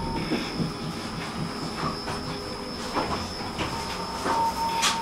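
Tram running on its rails, with irregular clicks and knocks from the wheels over the track and a steady thin high whine. A thin tone sounds near the end.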